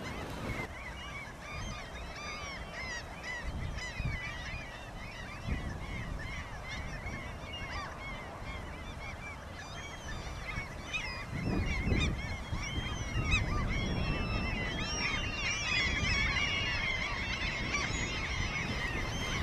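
A flock of birds calling all through, many short overlapping calls that get busier in the second half, over low wind rumble on the microphone that swells briefly just past the middle.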